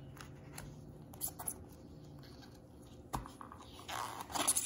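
Gloved hands handling a cardboard box and its paper card inserts: a few soft clicks and taps, a knock about three seconds in, and a brief rustle of card near the end.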